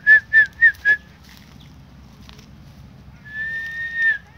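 Whistling to lure a garden lizard during a kapom hunt: four short whistled notes in the first second, then a long held whistle lasting about a second near the end that dips in pitch as it stops.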